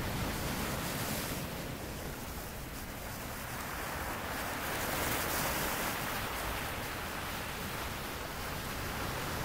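Ocean surf breaking and washing up the shore: a steady hiss of waves that swells about halfway through as a wave rolls in.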